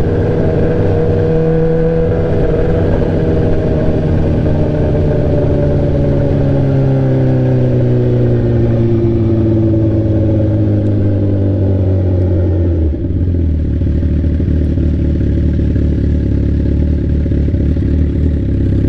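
Straight-piped sport bike engine running, its note falling slowly as the bike slows. About two-thirds of the way through it drops to a lower, steady note.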